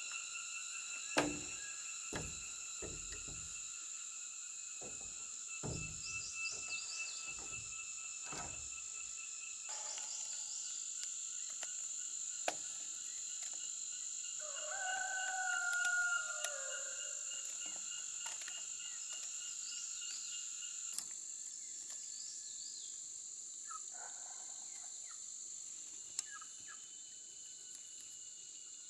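Steady insect chirring in several high, level pitches, cicada- or cricket-like. A few dull wooden knocks come in the first several seconds, and about halfway through a rooster crows once, for about two seconds.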